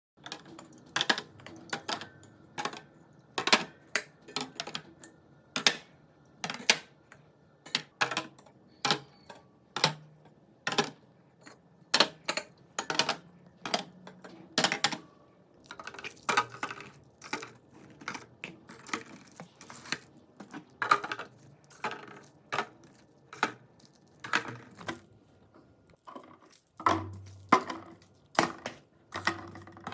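Sharp clacks and clinks of containers being set down and arranged in a refrigerator, one or two knocks a second at an uneven pace.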